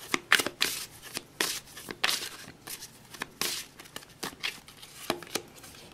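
A tarot deck being shuffled by hand: a run of short, papery card snaps, about two or three a second.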